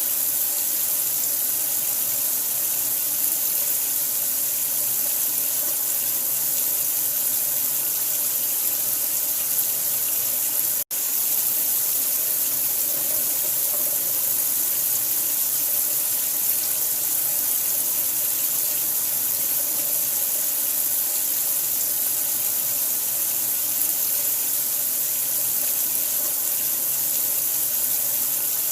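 Steady, unbroken rush of running water, its hiss strongest at the high end, used as a white-noise sleep sound for a newborn. The sound cuts out for a split second about eleven seconds in, then carries on unchanged.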